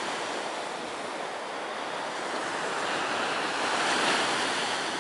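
Ocean surf breaking and washing up a sandy beach, a steady rush of waves that swells to its loudest about four seconds in.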